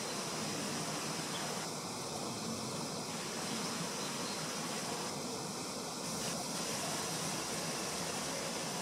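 Steady outdoor background hiss with a constant high-pitched insect chorus; no distinct events.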